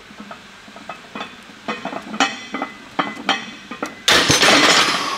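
Loaded barbell and weight plates clinking and clanking in a run of sharp metallic knocks during bench press reps. About four seconds in comes a louder clatter lasting about a second, as the bar goes back into the rack.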